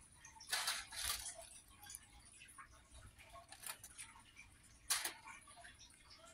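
A fork scraping and tapping in a foil-lined baking pan as it moves pork chops in their juices: a few short, faint scrapes about half a second to a second in, and one sharp tap about five seconds in.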